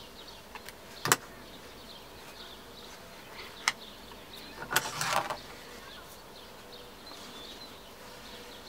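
Hands handling scissors and cloth on the bed of a sewing machine that is switched off: two sharp clicks about one second and three and a half seconds in, then a brief rustle of cloth about five seconds in. Faint bird chirps sound in the background.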